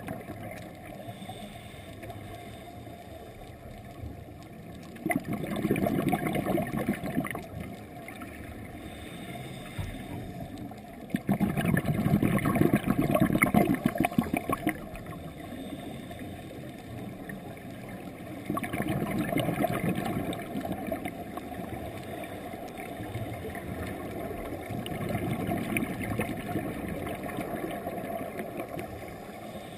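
Scuba regulator heard underwater: exhaled air bubbling out in four bursts of two to three seconds, several seconds apart, with quieter stretches between them.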